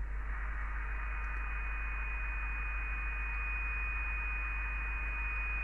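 Kenwood TR-751 VHF all-mode transceiver's speaker giving out steady receiver hiss in USB mode, with a steady high whistle-like tone on top. The tone is the generator signal injected into the IF section at its 10.656 MHz IF frequency, heard through the radio: the IF section is receiving.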